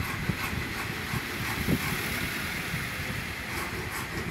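Steady rushing background noise with a low rumble, with a few faint small clicks.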